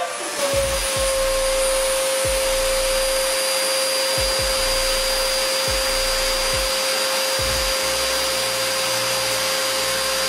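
An electric motor running steadily: an even rushing whir with a constant whine, and a few low knocks along the way.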